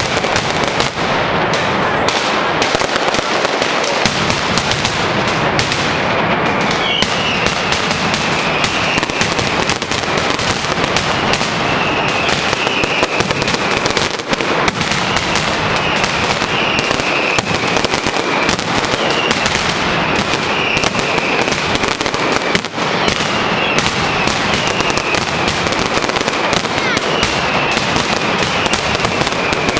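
Mascletà firecrackers going off in a dense, unbroken rattle of rapid bangs, loud and steady throughout. A falling whistle rises above the bangs every two to three seconds.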